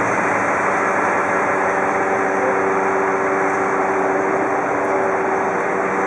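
Boom crane truck's engine running steadily: a constant drone with a few steady tones in it.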